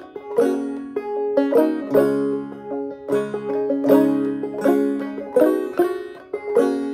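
Open-back five-string banjo in gCGCD tuning, played clawhammer style: a steady run of struck notes in a slow melody, each note ringing on over the next.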